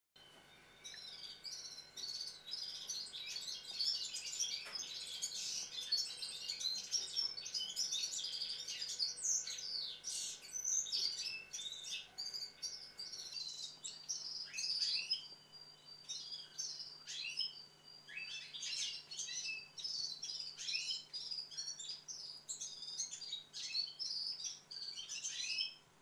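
A flock of small songbirds chirping busily, many short calls overlapping with no pause. A faint low background hum drops out about halfway.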